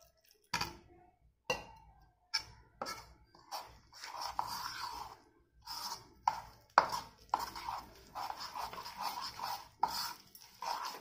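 A steel spoon mixing a thick rice-flour and coconut-milk batter in a ceramic bowl. A few separate clinks come in the first few seconds, then from about four seconds in the spoon scrapes and clinks steadily against the bowl in quick repeated strokes.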